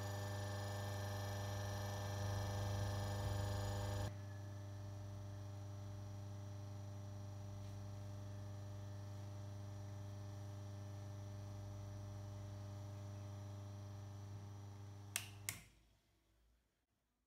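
Washing machine spin extractor motor, a capacitor-run single-phase motor on 230 V mains, running with a steady electrical hum; the hum drops in level about four seconds in. Near the end come two sharp clicks, and the hum then stops and dies away.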